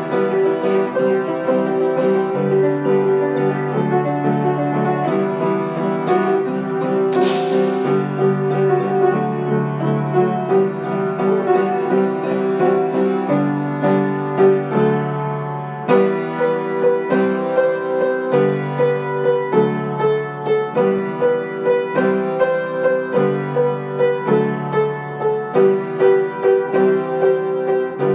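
Background piano music with a steady rhythm of repeated notes. A brief hissing swish about seven seconds in.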